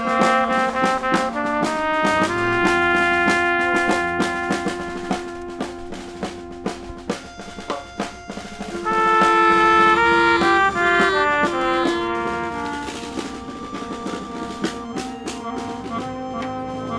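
Brass band playing an upbeat marching tune, sustained horn notes over a steady drum beat, swelling louder about nine seconds in.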